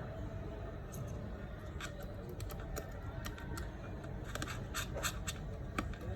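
Light clicks and scratches of a small tool working against an iPhone 7's aluminium rear housing as the volume-key cover is pried out: an irregular string of small ticks and scrapes.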